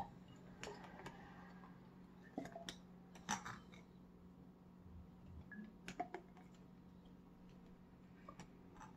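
Faint, scattered clicks and light knocks of a bulb-topped wine thief against the neck of a glass gallon jug and a hydrometer test jar, as a sample of wine must is drawn off for a specific gravity reading, over a low steady hum.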